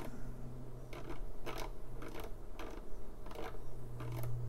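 Rohde & Schwarz RTB2004 oscilloscope's horizontal position knob being turned, its detents giving about eight short, irregular clicks over a steady low hum.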